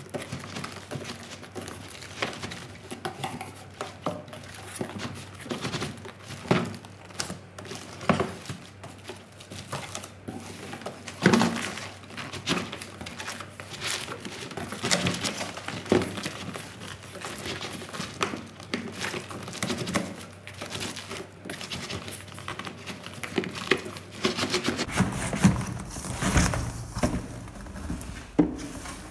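A clear plastic IKEA SAMLA storage box pulled out of its cardboard carton and handled: cardboard and paper packing rustling and scraping, with irregular knocks and clicks of the hard plastic, the sharpest knock about eleven seconds in.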